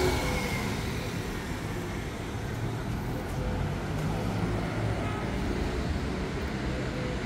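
Steady city street traffic: cars and motor scooters running past, a mix of engine hum and road noise, with a louder passing scooter fading away at the start.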